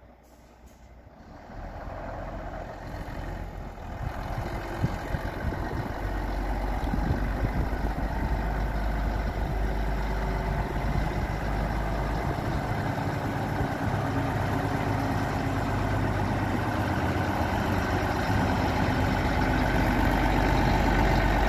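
Scania R124 tractor unit's 12-litre straight-six diesel engine running at low speed as the truck reverses slowly toward the listener. It starts faint and grows steadily louder as it comes closer.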